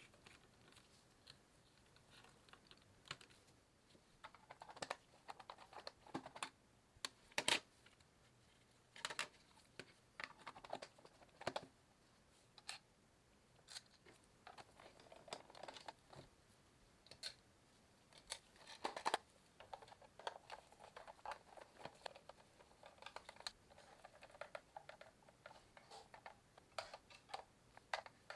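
Faint, irregular light clicks and taps, with short bursts of small rattling, typical of small hard plastic parts being handled and fitted during a toy repair.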